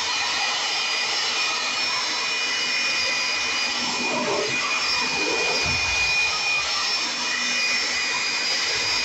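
Build Skill high-speed handheld electric blower running steadily: a rush of air with a high, even whine from its motor and fan.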